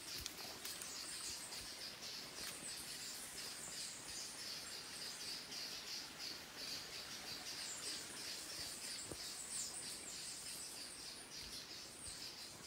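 Rainforest chorus of insects and birds: a steady, fast high-pitched chirping that runs on evenly, with a few faint ticks.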